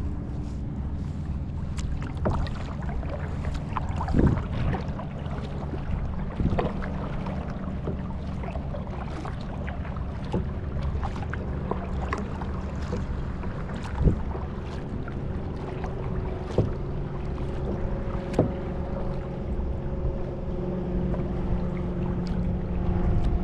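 A steady engine drone with scattered knocks and clicks; a higher steady tone joins about two-thirds of the way through.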